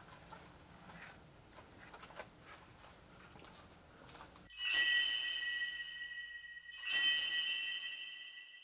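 Faint ambience with a few light clicks, then about halfway through a bell-like metal chime rings out suddenly and is struck again about two seconds later, each time a cluster of high ringing tones slowly dying away.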